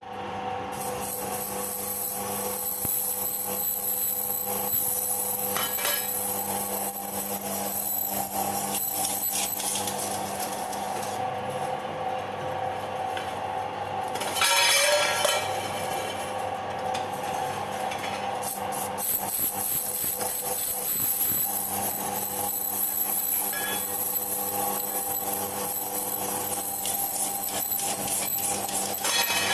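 Metal lathe cutting steel: a steady motor hum under a high, hissing cutting noise. The cutting noise stops for several seconds in the middle and then starts again.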